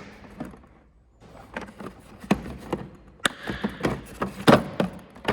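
Irregular clicks and knocks of hand tools being moved about in a Snap-on toolbox drawer, with a couple of sharper knocks about three and four and a half seconds in.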